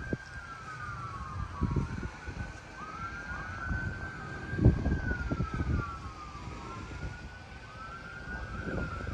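Several emergency vehicle sirens wailing at once, their rising and falling tones overlapping, with one switching to a quicker yelp near the end. Low rumbles and thumps sound underneath, the loudest about halfway through.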